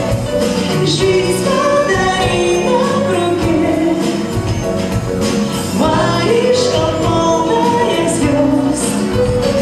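A live pop band playing: electronic drum kit and electric guitar, with a woman singing at times.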